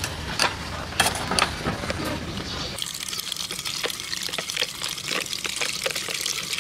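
Noodles stirred in a boiling steel pot, with a utensil clicking against the metal over a low rumble. About three seconds in this changes to a steady hiss of tap water running onto noodles in a plastic colander, with small clicks as chopsticks toss them.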